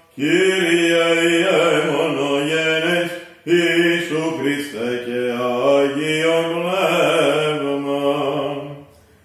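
A male voice singing Byzantine chant from a book: long held, melismatic notes in two phrases, with a short breath break about three seconds in.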